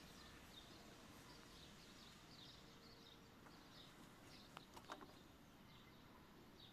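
Near silence: faint background hiss with soft, short high-pitched chirps repeating throughout, and a few small clicks about four and a half to five seconds in.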